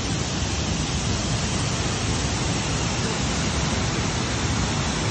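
Waterfall pouring over a high man-made wall: a steady, loud rush of falling water.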